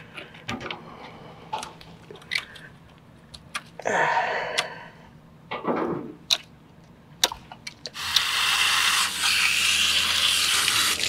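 Garden hose spraying water onto an outboard motor's leg, a steady hiss that starts about eight seconds in. Before it come scattered light clicks and knocks of hands and tools working on the engine.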